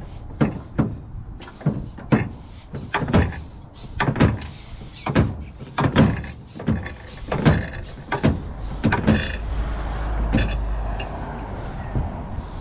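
Irregular metal knocks and clanks, about one or two a second, from a gas hot water unit being taken apart for scrap. Over the last few seconds the knocks give way to a steadier rumbling noise.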